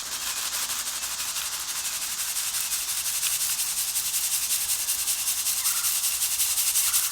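Dry concrete mix being shaken in a sieve, its sand and cement rasping through the mesh while the gravel rattles and stays behind. A steady, fast, even back-and-forth shaking that runs without a break.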